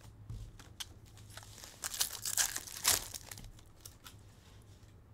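A foil trading-card pack being torn open and its wrapper crinkled: quick crackling rustles, loudest from about two to three seconds in.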